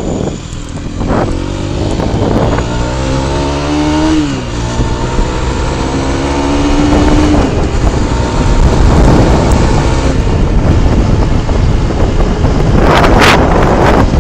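Mondial HPS 125i's single-cylinder four-stroke engine accelerating, rising in pitch through a gear, with a sudden drop at a shift about four seconds in, then rising again. As speed builds, wind noise on the microphone takes over and is loudest near the end.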